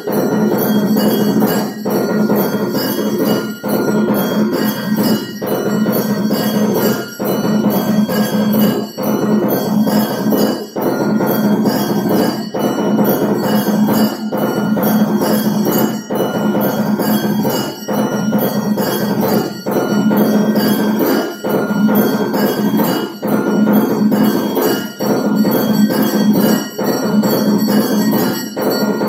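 Hindu temple bells (ghanti) ringing continuously during an aarti, many bells clanging together in a dense, unbroken din.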